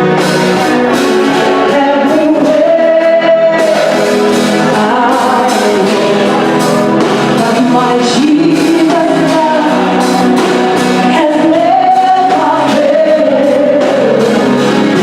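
Music with singing voices, starting suddenly out of silence.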